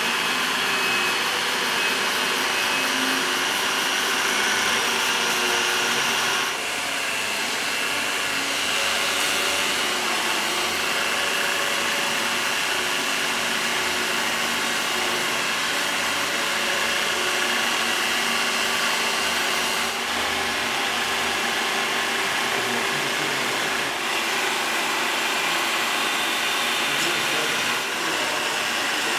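Electric grinder spinning a Rebel One F-line unitized abrasive wheel against welded stainless steel pipe: a steady motor whine with the hiss of the wheel rubbing off weld discolouration.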